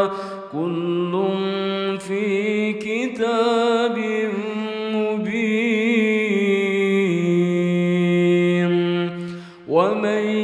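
A single voice reciting Quranic verse in slow, drawn-out chanted style: long held notes with ornamented, wavering pitch. A brief pause for breath near the end, then the next phrase begins.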